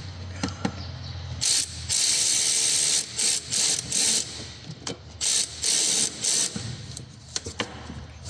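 Ratchet wrench being cranked in several short runs of rapid clicking, tightening fasteners.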